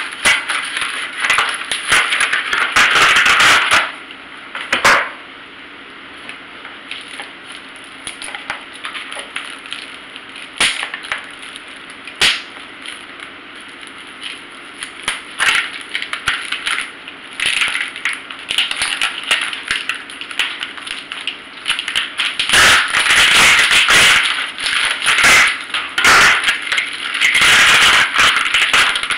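Plastic packaging crinkling and rustling as a vacuum-packed bag of mussels is handled and cut open: loud for the first few seconds, then quieter with scattered clicks. From about two-thirds of the way in it gets loud again, with crinkling plastic and the mussel shells clinking and rattling in the bags.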